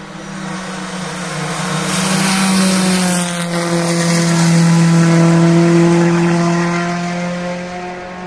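Rally car engine running hard as the car comes by, growing louder to a peak about halfway through and then fading away.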